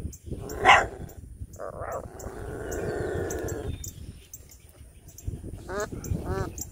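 Animal calls: one long call of under two seconds, then two short yelps that bend in pitch near the end. A single sharp knock comes about a second in.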